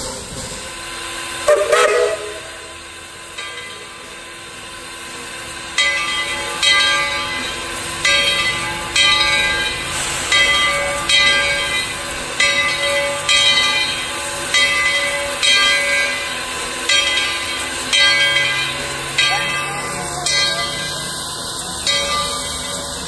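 Steam locomotive whistle giving a short blast about a second and a half in, then the locomotive's bell ringing steadily about once a second from roughly six seconds in, over a hiss of steam.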